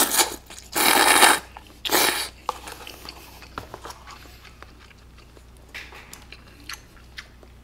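A person slurping cold buckwheat noodles (mul-naengmyeon) from a bowl: two loud slurps, one long and one short, in the first couple of seconds, then quieter chewing with small wet clicks.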